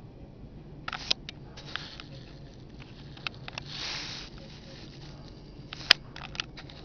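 HO-scale model train cars rolling past at close range, their metal wheels clicking and ticking irregularly over the sectional track. A short rush of noise comes as a car passes around four seconds in, and one sharp click, the loudest sound, comes near six seconds.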